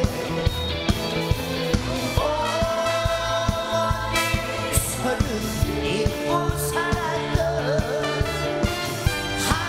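Live trot song: a man singing with vibrato over a band with a steady drum beat and electric guitar. His voice comes in about two seconds in.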